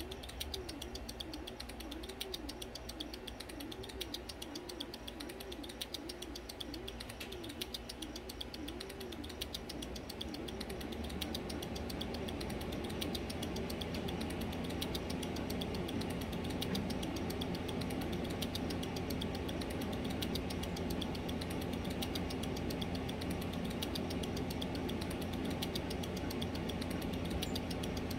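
Rapid, steady fine ticking, like a small mechanism, with a low hum that grows louder about eleven seconds in.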